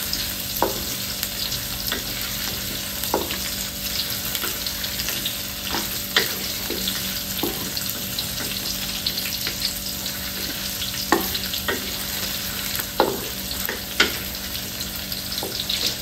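Raw buah kepayang (Pangium edule) frying in hot oil with onions and chilli: a steady sizzle, stirred with a utensil that scrapes and knocks against the pan every few seconds.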